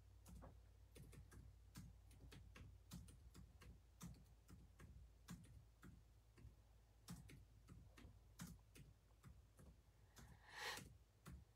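Faint, irregular clicking of typing on a computer keyboard, with a short louder rustle near the end.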